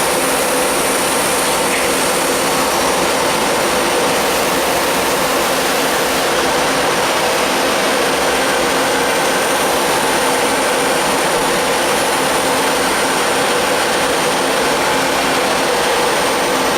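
NC multi-function automatic lathe running steadily as it machines metal: a constant loud whir with a thin, steady high whine over it.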